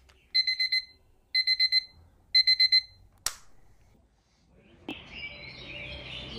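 Digital alarm beeping in three bursts of four quick high beeps, about one burst a second, followed by a single sharp click. About five seconds in a steady hiss begins.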